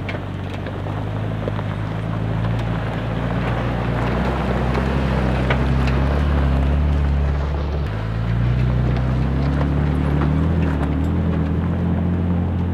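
Pickup truck engine pulling steadily up a rough dirt trail, with tyre and road noise over it. The engine note changes abruptly about eight seconds in.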